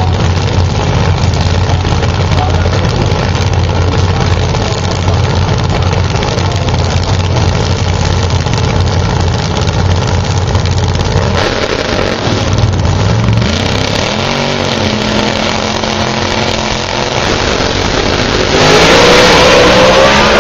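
Two drag-racing cars' engines running loudly on the starting line, with revs rising and falling as they stage. About a second and a half before the end they launch at full throttle, much louder, the pitch climbing as they accelerate away.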